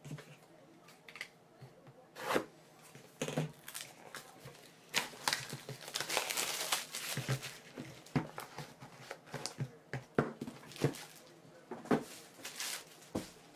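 Plastic wrapping being torn and crinkled off a box of trading cards, with scattered clicks and knocks as the box and cards are handled; the longest stretch of tearing comes about halfway through.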